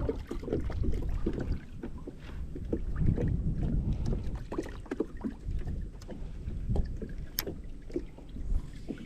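Scattered light knocks and taps inside a small plastic fishing boat over a low, uneven rumble of wind and water, with one sharper click near the end.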